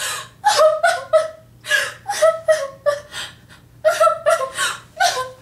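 A woman's voice in a run of short, high-pitched, breathy outbursts without words, two or three a second.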